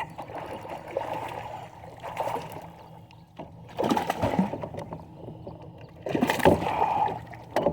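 Water splashing and sloshing beside a small fishing boat as a hooked bass thrashes, in louder bursts about three and a half and six seconds in.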